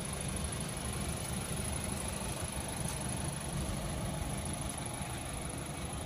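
Honda City's engine idling steadily, a low even rumble.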